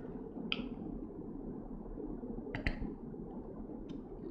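A few short metallic clicks from handling a hand nut rivet tool and blind nut rivet, one about half a second in and another a couple of seconds later, with fainter ticks near the end, over a steady low background noise.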